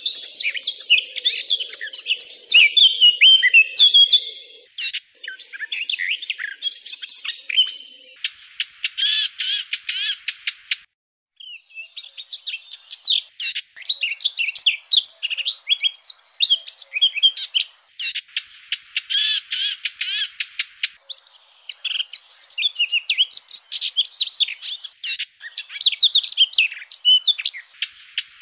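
Eurasian blackcap singing: a fast, rich warbling song in dense runs, with a brief break about eleven seconds in.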